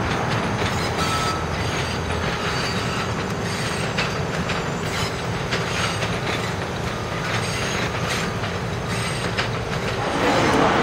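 R68 subway cars rolling past on yard track, steel wheels rumbling and clicking over rail joints and switches, with brief faint squeals. Just before the end the sound gives way to louder road traffic.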